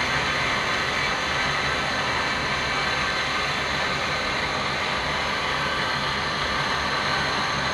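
Dairy-shed fogger misting system running: a steady hiss of the fogging nozzles spraying fine mist, with a low, even hum underneath.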